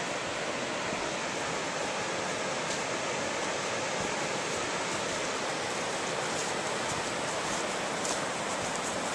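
Steady rush of river water. From about six seconds in, dry leaves crackle lightly underfoot.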